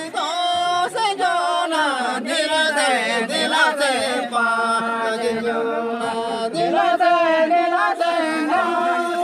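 A group of men singing a Santali song together, in long, drawn-out notes that glide up and down.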